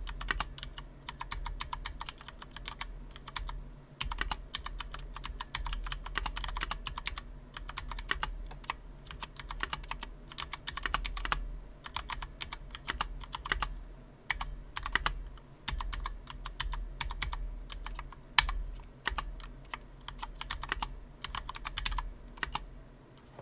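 Typing on a Cherry MX 3.0 S wired mechanical keyboard: quick runs of keystroke clicks broken by short pauses, with a sharper single keystroke now and then.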